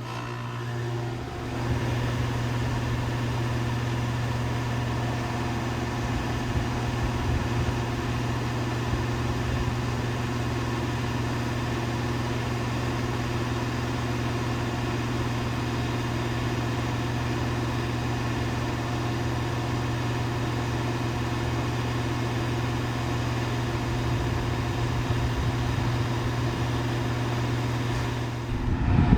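Rheem Classic central air conditioner condenser starting up and running. The Copeland scroll compressor gives a steady low hum under the rush of the condenser fan. The sound builds over the first two seconds, then holds steady. The ProTech fan motor is loud and on its last legs.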